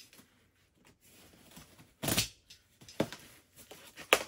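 Cardboard shipping box being cut open with a box cutter: a loud rasp of tape and cardboard about two seconds in, then a few short scrapes and knocks.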